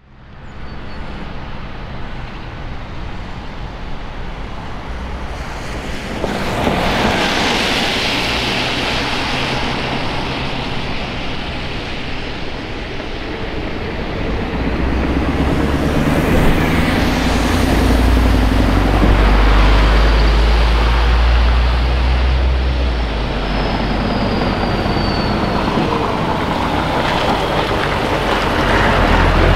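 Straight-piped 14-litre V8 of a Scania 143H tipper truck, a deep, loud exhaust rumble that grows heavier as the truck drives up and passes close by, among other road traffic.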